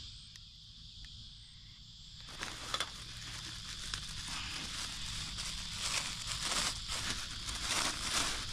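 Clear plastic bag crinkling and rustling in the hands, in irregular small crackles that start about two seconds in.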